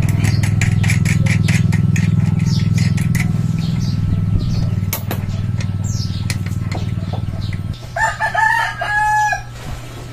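A steady low mechanical hum with fast light clicking over it for the first few seconds; the hum cuts off about three-quarters of the way through. A rooster then crows once near the end.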